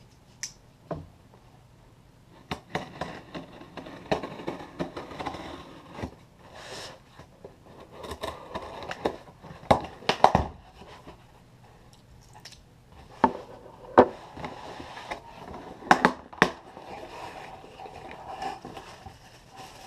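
A cardboard shipping box being opened and unpacked by hand: irregular scrapes, taps and rustles of cardboard and packing material, with several sharp clicks.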